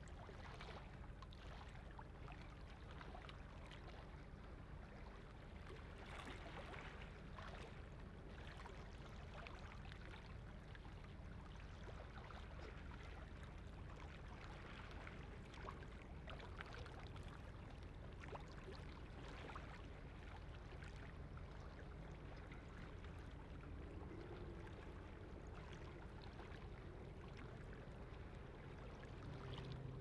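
Water lapping and trickling in small irregular splashes over a low steady rumble from a passing ship.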